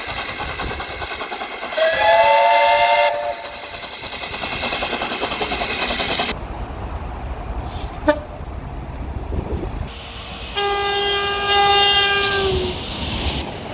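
British train horns in clips cut together: a short horn blast about two seconds in, the noise of trains running in between, then a longer, lower single horn near the end that sags in pitch as it dies away.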